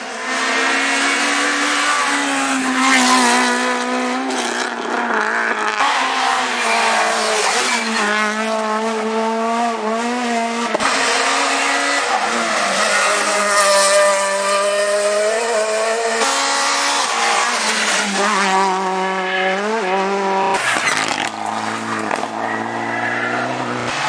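Rally cars at full speed on a tarmac special stage, one after another, their engines revving hard. The pitch climbs and drops repeatedly through gear changes and lifts as each car approaches.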